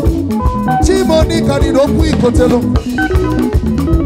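Live band music with a steady beat: electric guitars, electronic keyboard and a drum kit playing together.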